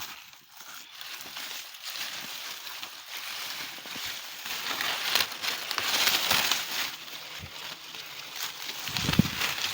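Dry bean plants rustling and crackling as they are pulled up by the roots and handled, in uneven surges, with a short dull thump near the end.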